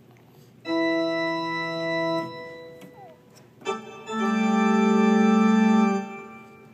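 Small electronic keyboard with keys pressed at random by a baby's hands. A cluster of notes is held for about a second and a half, then a brief note sounds, then a louder cluster of several keys is held for nearly two seconds. All are steady, organ-like tones that stop as soon as the keys are let go.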